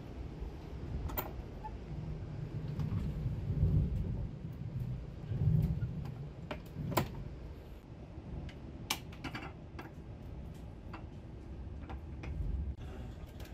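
Scattered sharp clicks and light knocks of a seat-back tray table and its latch being handled, over the low running rumble of a Railjet train carriage in motion.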